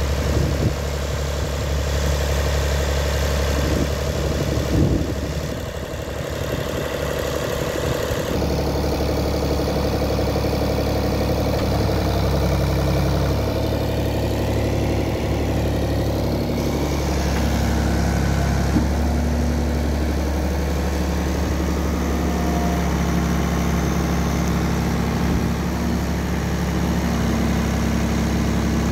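Ford 555 backhoe loader's diesel engine running steadily near idle, its note shifting a few times as the hydraulics lower the stabilizer legs and work the backhoe arm.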